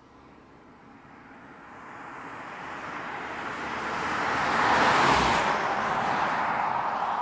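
BMW 6 Series Gran Coupe driving past: engine and tyre noise build steadily as it approaches, peak about five seconds in as the car goes by, then turn duller and ease off a little as it pulls away.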